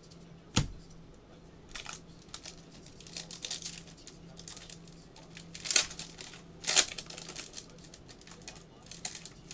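Foil wrapper of a trading-card pack crinkling and tearing as it is opened by hand, with a sharp tap about half a second in and two louder crackles near six and seven seconds.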